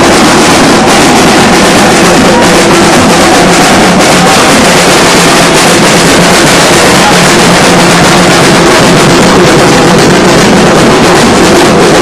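Marching street band of drums and trombone playing, with crowd noise, in a recording so loud that the sound is a dense, distorted wash.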